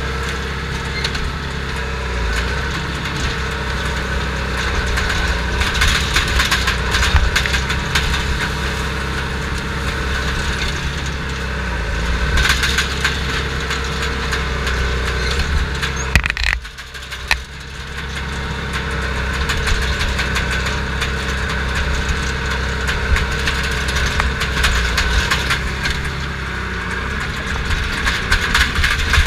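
Crawler dozer's diesel engine running steadily, heard from inside the cab, with the metallic clatter of the tracks and machine over it. The sound drops sharply for about a second just past halfway, then builds back up.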